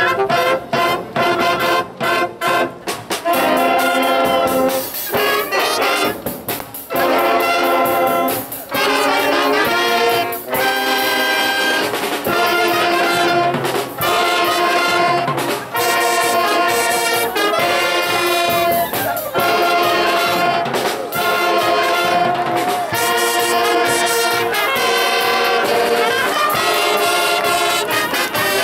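School wind band of saxophones, trumpets, trombones and sousaphones playing a piece: it opens with a run of short punched chords, then moves into held chords in phrases of about two seconds each.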